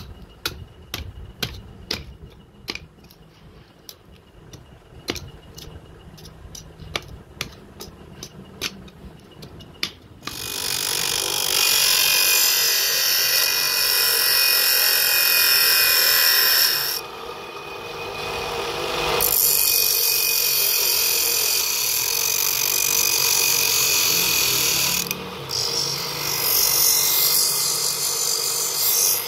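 Sharp metallic taps about twice a second as a hammer knocks the knife's steel tang into its wooden handle. About ten seconds in, a bench grinder's stone wheel starts grinding the steel blade with a loud, steady rasp, easing off for about two seconds in the middle when the blade is lifted, then grinding again.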